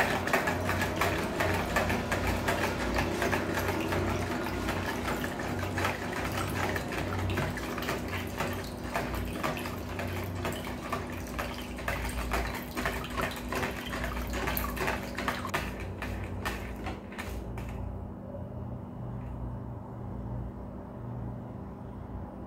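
Wire whisk beating a thin liquid in a plastic tub: fast, rapid clicking of the wires against the tub with liquid splashing as a thin stream is poured in. The whisking stops about 16 to 18 seconds in, leaving only a quieter sound of liquid.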